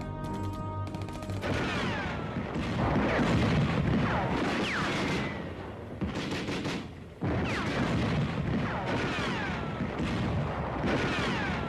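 Battle gunfire: dense, rapid rifle and machine-gun fire with many short falling whistles, after a second or so of music at the start. It drops out briefly about seven seconds in, then comes back.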